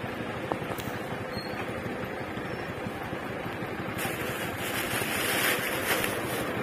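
A vehicle engine running steadily with a fast low pulse, joined by a rushing hiss from about four seconds in until just before the end.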